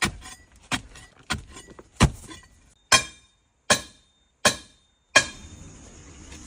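A series of eight sharp hits, each dying away quickly, coming a little under a second apart with dead silence between some of them. About five seconds in, a steady high hiss begins.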